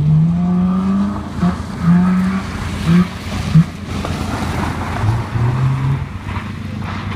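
Subaru Impreza's flat-four engine revving hard as the car is thrown around an autotest course. The engine note climbs through the first second, then comes in short, broken bursts with lifts in between, and drops lower about five seconds in.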